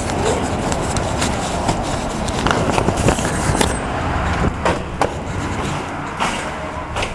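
Steady rumbling road and traffic noise, with a few sharp knocks and clicks scattered through it.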